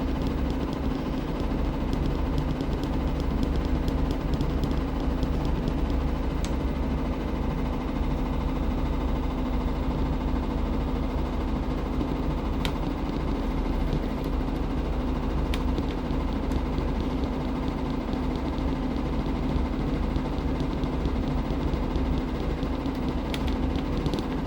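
Washing machine running: a steady motor hum with a few faint clicks.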